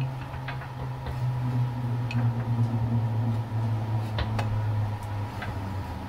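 Shop press pressing a steering stem into an aluminium triple clamp: scattered light metallic clicks and ticks at uneven intervals, over a steady low hum.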